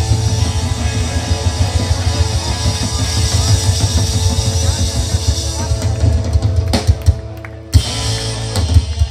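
Live rock band (drum kit, bass and electric guitar) playing loud, with no singing, as the closing bars of the song. The dense playing thins after about six seconds into a few separate closing hits.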